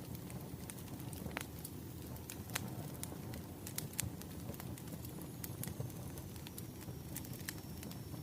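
Firewood burning: a steady low rumble of the fire with irregular sharp crackles and pops from the logs.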